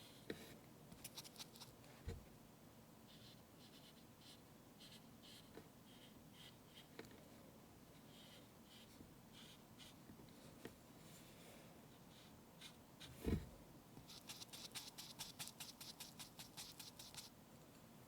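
Faint scratchy strokes of drawing on a toy's surface, with a light knock about two seconds in and a louder knock about thirteen seconds in, then a quick run of strokes near the end.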